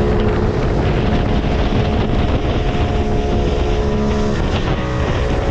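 Boat engine running steadily under way, with wind rumbling on the microphone; the engine note shifts about four seconds in.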